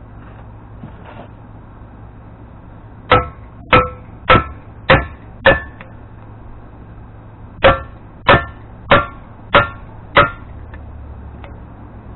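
Hammer blows on a steel bearing-race driver, driving a new bearing race into the bore of a Dana 44 front wheel hub. Two sets of five strikes, about two a second, each with a short metallic ring.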